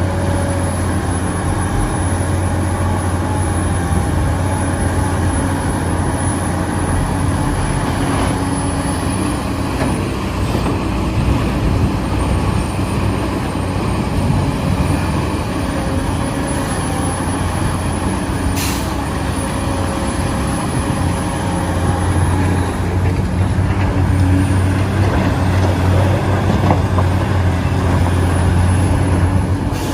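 Radio-controlled excavator's electric motor and hydraulic pump running continuously: a steady low hum under a high thin whine that rises and falls in pitch as the machine works. A single sharp click about two-thirds of the way through.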